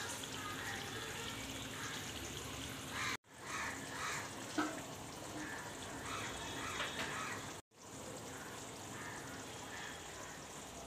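Chicken curry gravy boiling in a pot: a steady bubbling hiss, with short calls now and then in the background. The sound cuts out abruptly twice, about three and eight seconds in.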